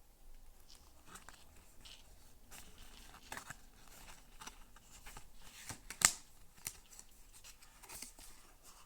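Tarot cards being handled: the card stock slides and rustles with scattered light clicks, and one sharper snap comes about six seconds in.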